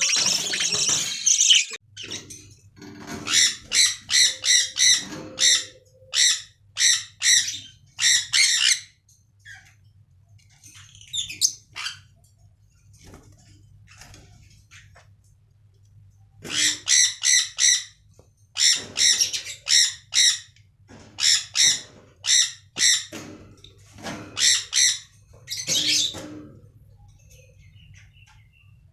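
Budgerigars squawking in rapid runs of short, harsh, repeated calls, with several seconds of only faint scattered calls in the middle.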